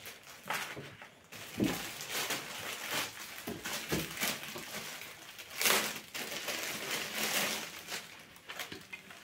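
Plastic courier mailer and the dress's clear plastic wrapping crinkling and rustling as they are handled, in irregular bursts, with the loudest about halfway through.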